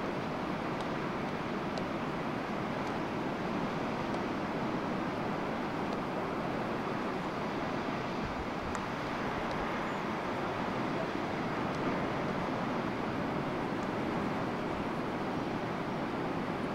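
Pacific surf washing over a rocky shore: a steady, continuous rush of breaking waves with no separate crashes standing out.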